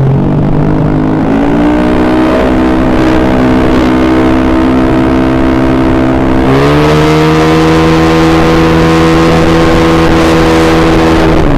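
Honda BeAT carburettor scooter's single-cylinder four-stroke engine, freshly rebuilt with all-new parts, running with the throttle held open. It rises from idle to a steady higher speed about a second in, climbs to a second, higher steady speed about six and a half seconds in, and drops back to idle near the end.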